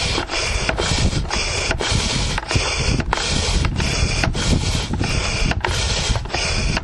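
Air mattress pump pumping air in rhythmic strokes, a rushing hiss that breaks about three times every two seconds, like breathing in and out.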